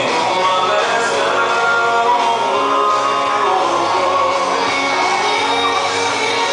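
Country-style song with a singer, played over a hall's loudspeakers for line dancing.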